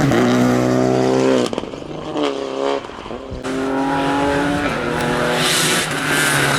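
Rally car engine revving hard and rising in pitch, then lifting off about a second and a half in with a burst of sharp pops and a brief blip of the throttle. It then pulls away again with another rising rev, and a hiss of tyre noise comes near the end.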